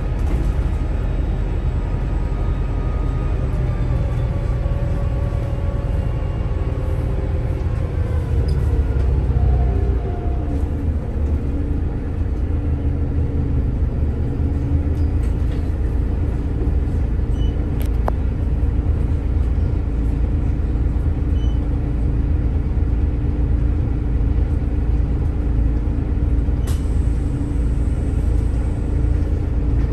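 Volvo B8RLE bus's diesel engine and ZF EcoLife automatic gearbox running, the engine note falling over the first ten seconds or so and then holding a steady hum. Two short sharp clicks come later on.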